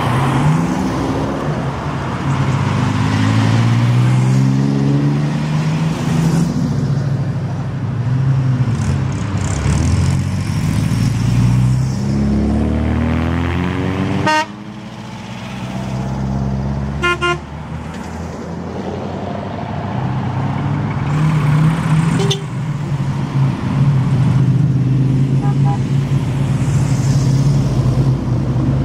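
A line of classic cars driving past one after another, engines running and rising in pitch as each accelerates away. A few short car-horn toots sound about two-thirds of the way through, with fainter ones later.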